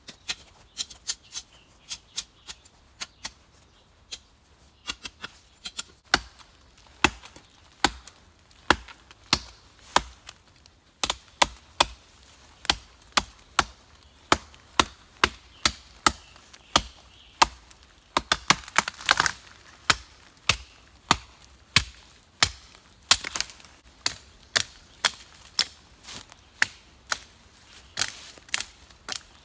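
ESEE Junglas machete chopping into a dead branch with repeated strikes, about one to two a second, one of them longer and louder about two-thirds of the way through.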